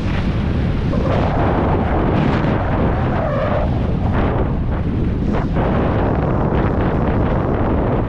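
Heavy wind buffeting the microphone of a helmet-mounted action camera while skiing fast, at about 50 to 60 km/h, with the hiss and scrape of skis carving over packed snow.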